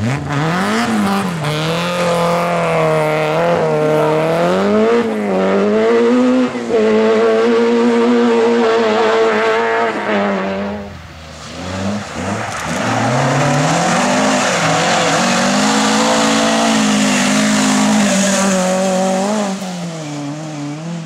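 Rally car engines at full throttle, revving and shifting up and down through the gears as cars drive a stage. The engine sound falls away about eleven seconds in, then a second run builds up and continues.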